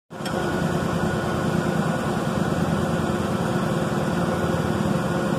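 Steady hum of running machinery with a fast low flutter.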